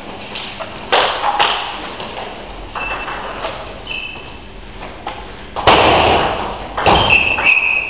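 Table tennis ball clicking off the bats and table in scattered sharp hits, with short high ringing tones between them. The loudest sound is a thud about three-quarters of the way in.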